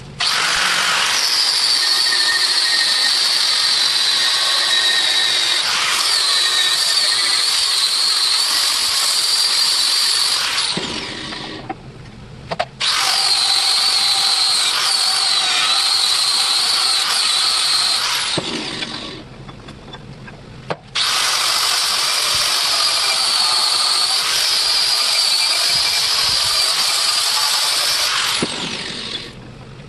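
Electric grinder working the steel head of a chipping hammer, putting an edge on it and cleaning it up. The grinder runs with a high whine in three long stretches, and each one ends with the motor switched off and spinning down.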